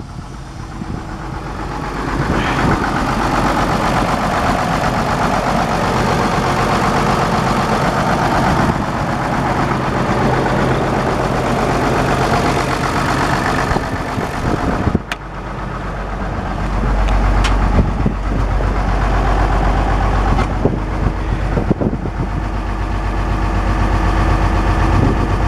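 Case 1070 tractor's 451-cubic-inch six-cylinder diesel engine running steadily. About fifteen seconds in the sound dips briefly, then comes back with a heavier low rumble.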